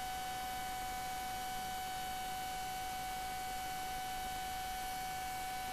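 Steady electrical hum at a single fairly high pitch, with a faint even hiss beneath it.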